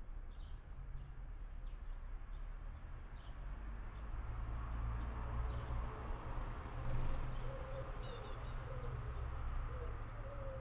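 Faint outdoor bird calls over a steady low rumble: short high chirps scattered through, a quick run of chirps about eight seconds in, and a low repeated call starting about seven seconds in.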